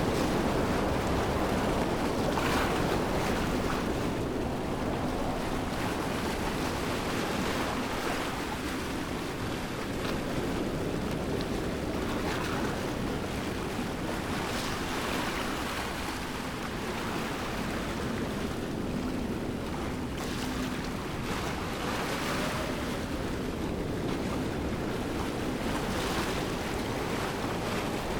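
Waterfall rushing steadily, a continuous wash of falling water that swells slightly now and then.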